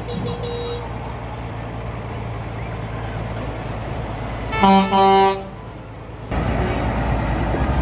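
A vehicle horn sounds twice about five seconds in, a short toot then a longer blast, over the steady low rumble of vehicle engines. Near the end the rumble suddenly jumps louder.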